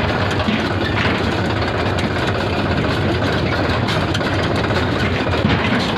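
Tractor engine running steadily as the tractor drives along, heard from on board.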